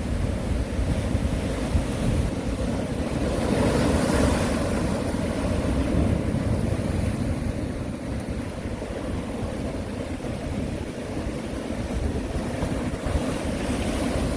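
Sea waves washing onto the East Sea shore, a continuous surf wash that swells with a breaking wave about four seconds in, with wind buffeting the microphone as a low rumble.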